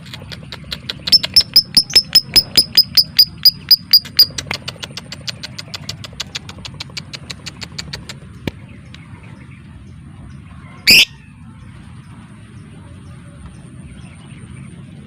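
Lovebird giving a rapid run of sharp, clicky chirps, about five a second, that fades after about four seconds, then one short loud call near the end.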